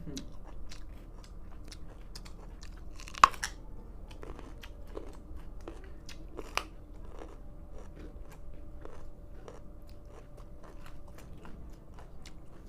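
Raw carrots being chewed, a steady run of irregular wet crunches and crackles, with a loud sharp crack of a bite snapping through the carrot about a quarter of the way in and another about halfway. The carrots are very hard and tough to chew.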